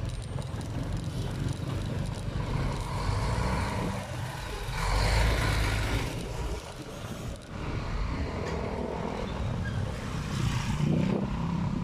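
Road noise of riding a motorcycle in traffic: engine running under a steady rush of wind, swelling louder about five seconds in.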